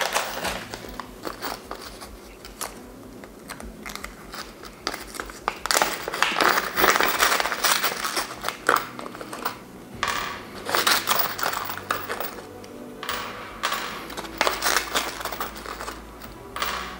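Plastic hardware bags being handled and rummaged through for screws, crinkling in irregular bursts.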